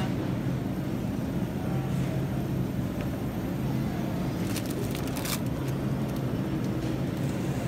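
Steady low machine hum of supermarket refrigerated display cases, with a few short clicks about four and a half to five and a half seconds in.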